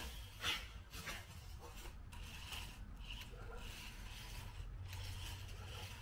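Small electric motor of a cheap toy RC car whining in short spurts. Two clicks come about half a second and a second in, the first the loudest sound.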